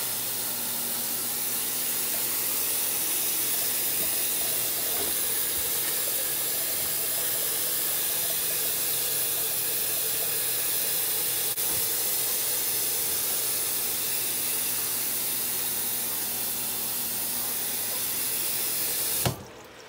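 Kitchen tap running a steady stream of water onto chopped cabbage in a foil pan in a stainless steel sink, rinsing it. The water stops abruptly near the end.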